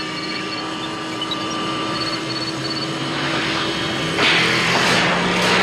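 Film sound effect of the DeLorean time machine car: a steady electrical hum, then a rushing roar that builds and jumps sharply louder about four seconds in.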